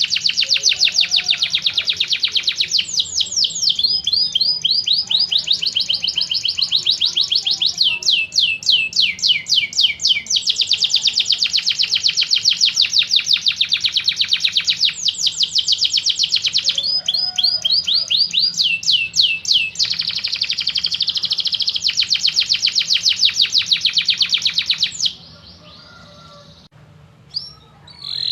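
Domestic canary singing a long, unbroken song of rapid trills, switching from one trilled phrase to the next every few seconds. The song stops near the end, with one short note after a pause.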